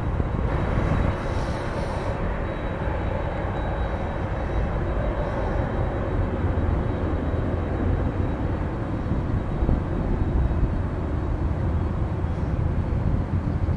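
Jet engines of a Boeing 767-300 airliner running as it rolls along the runway: a steady rumble.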